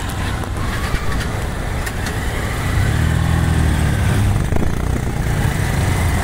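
Small motorcycle engines running in city traffic at a junction, with an engine note swelling and falling about three seconds in.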